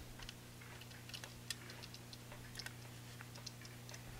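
Faint, irregularly spaced small clicks from the hands of an antique French clock being fitted and turned by hand on the dial, over a steady low hum.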